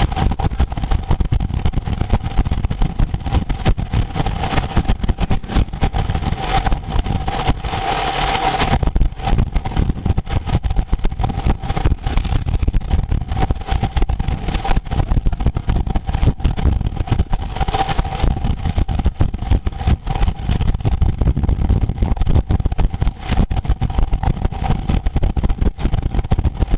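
Wind buffeting the microphone of a camera riding with a road bike at race speed: a loud, fluttering low rush, with a steady high hum running under it.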